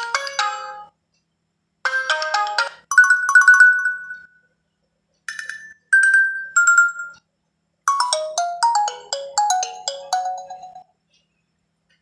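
Nokia ringtones previewed one after another through a smartphone's speaker: short electronic chime melodies of clear notes, each cut off after one to three seconds as the next one is picked, with short silences between them.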